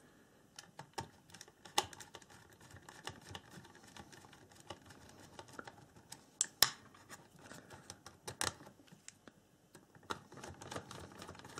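Small hand screwdriver turning the circuit-board screws into the plastic housing: faint, irregular clicks and scrapes, with three louder clicks spread through.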